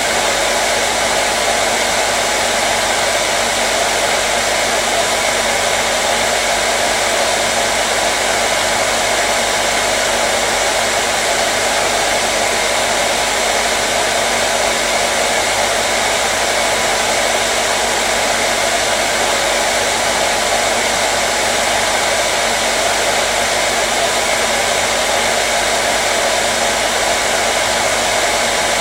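Hair dryer running steadily: a continuous blowing rush with a faint steady hum in it, unchanging throughout.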